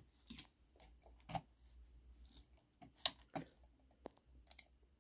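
Computer mouse buttons clicking, faint, about half a dozen single clicks at irregular intervals, over a faint low hum.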